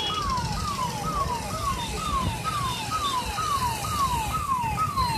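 Electronic siren sounding a fast repeating falling sweep, about two sweeps a second, over a steady low rumble.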